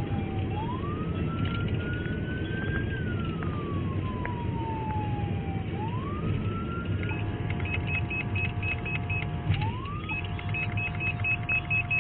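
Emergency-vehicle siren wailing in slow rises and falls, heard inside a moving patrol car over steady road and engine noise. From about seven seconds in, a rapid run of high beeps, about four a second, sounds along with it.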